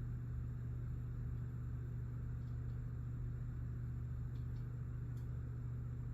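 Steady low hum, with a few faint light clicks about four to five seconds in.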